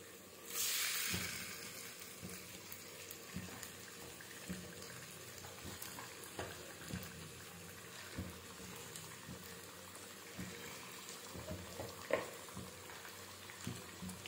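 Cornflour-coated chicken pieces sizzling in hot mustard oil in a kadhai. A loud hiss comes about half a second in as the pieces go into the oil, fading over a second or two to a low steady sizzle with scattered soft knocks and pops.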